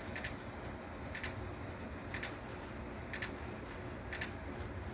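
Relay in a Smart Sync module inside a Simplex 4010 fire alarm panel clicking, a quick double click about once a second, as the module puts out the sync signal that keeps the strobes flashing together during the alarm.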